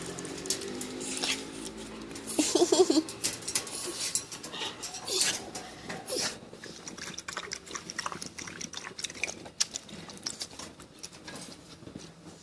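West Highland white terrier moving about, with many light clicks and pattering. About two and a half seconds in, the dog makes a brief pitched sound.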